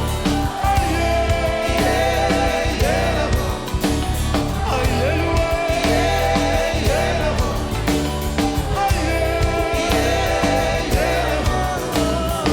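Song with sung vocals over a full band with a strong bass line, stopping abruptly near the end as playback is paused.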